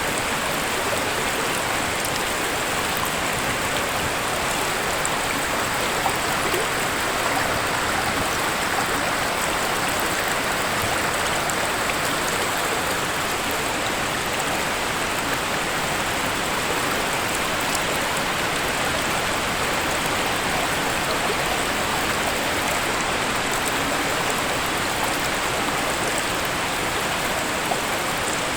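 Steady rush of falling and flowing water from a waterfall.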